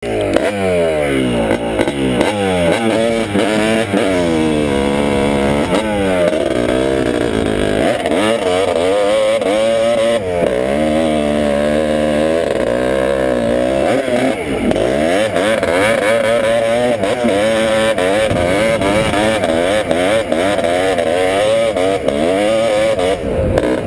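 Honda ATC250R three-wheeler's two-stroke single-cylinder engine being ridden hard, its pitch repeatedly climbing and dropping as the throttle is worked.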